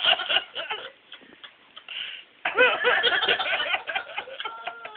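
People snickering and giggling under their breath, in two spells: one at the start and a longer one from about two and a half seconds in.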